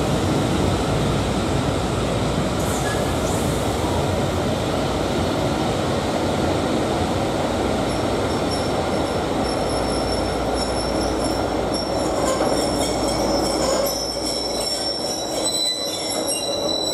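Passenger coaches of a steam-hauled train rolling slowly past along the station platform with a steady rumble. High metallic squealing from the wheels joins in about eight seconds in and continues.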